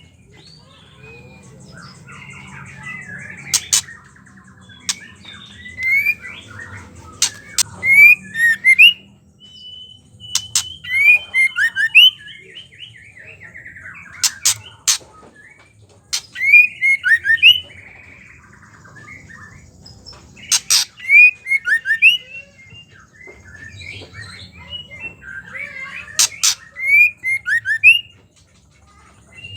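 Female white-rumped shama calling: clusters of short, quick chattering chirps repeated every second or two, mixed with sharp clicks and one longer whistled note.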